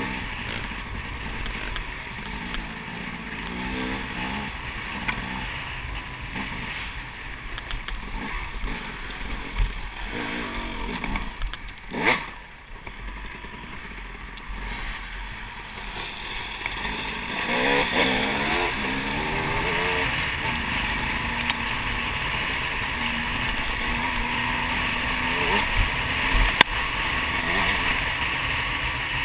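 Dirt bike engine running under the rider, revving up and dropping back several times as it pulls along the trail, louder from about halfway on. One sharp knock about twelve seconds in.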